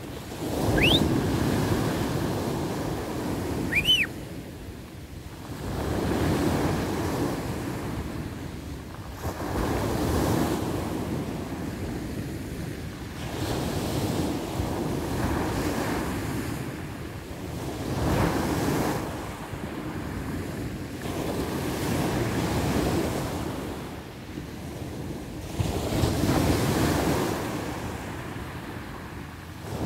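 Surf breaking on a sand beach, each wave surging and falling away about every four seconds, with wind buffeting the microphone. Two brief high rising chirps sound in the first few seconds.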